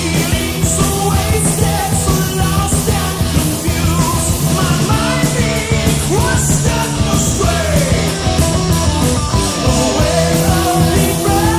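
1980s heavy metal band recording: electric guitars, bass and drums playing with a steady beat.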